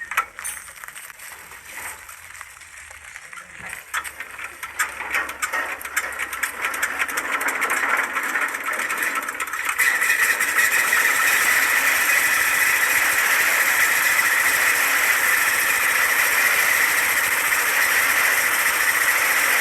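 Hand-cranked diesel engine starting: its strokes quicken and grow louder over several seconds, and from about halfway through it runs with a loud, steady clatter.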